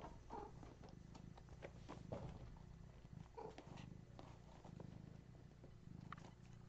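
A cat purring softly, a low pulsing rumble that rises and falls in cycles of about a second, with a few faint short sounds over it.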